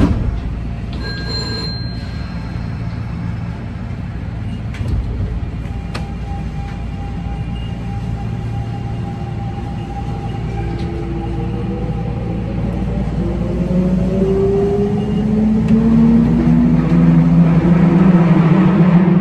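Kintetsu electric train in motion, with a steady low running rumble. In the second half the traction motors start a whine of several tones that climbs steadily in pitch and grows louder as the train picks up speed. A short high tone sounds about two seconds in.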